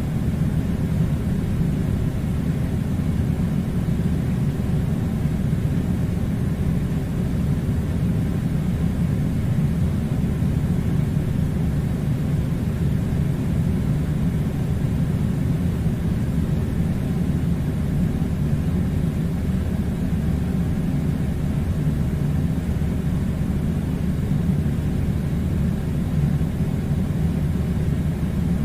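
Steady, unbroken low rumbling noise, like a machine or air unit running continuously, with no changes in level.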